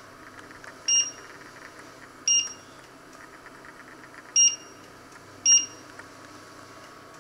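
Induction hob touch controls beeping four times as a finger raises the power level and sets a timer. Each beep is a short high-pitched electronic tone.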